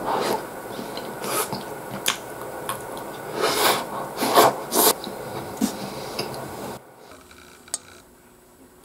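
Chewing sounds of a person eating a bread roll soaked in beef stew: irregular rasping chews with sharp mouth clicks. The chewing falls quiet about seven seconds in, leaving faint room sound with a single click.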